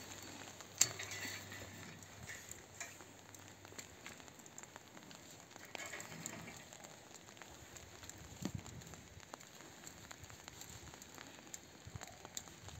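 Rustling and crackling of cut grapevine canes and dry leaves being pulled out through the trellis wires, with scattered sharp clicks of twigs and pruning secateurs, the loudest click about a second in.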